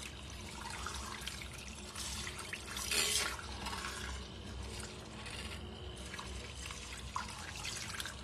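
Handheld milk frother whisking a thin, watery batter in a glass bowl: a steady wet swishing and sloshing of liquid, with a brief louder splash about three seconds in.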